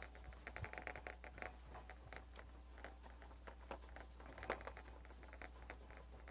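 Whiteboard eraser wiping across a whiteboard in quick, faint back-and-forth strokes, in two spells: through about the first second and a half, and again around four to five seconds in.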